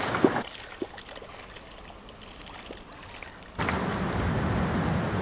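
A hooked rainbow trout thrashing and splashing at the surface of the pond as it is reeled in. The splashing starts suddenly about three and a half seconds in, after a quieter stretch with a few faint clicks.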